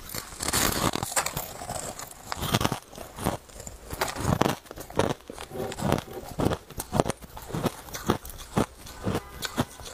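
A person biting and chewing a clump of granular crushed ice: a loud crunching bite near the start, then a steady run of crisp crunches, about two to three a second, as the ice is chewed.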